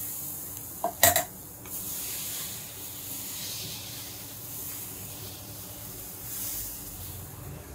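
Crepe batter hissing on a hot round crepe griddle as it is ladled on and spread thin with a wooden spreader. A sharp double clack about a second in.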